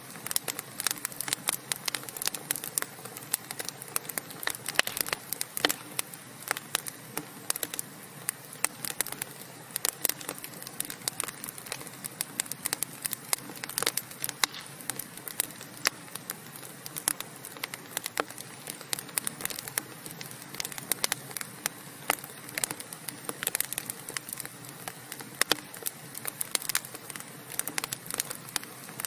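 Wood fire crackling: burning logs popping and snapping in irregular sharp clicks over a steady hiss.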